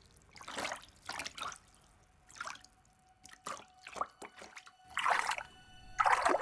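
Water splashing and dripping in short, irregular bursts as bundles of flax are laid by hand into still water to ret, the loudest splashes near the end.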